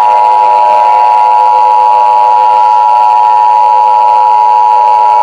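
Civil-defence-style warning siren sounding a loud, steady chord of several held tones, the strongest high and piercing. Near the end a lower tone slowly sinks in pitch.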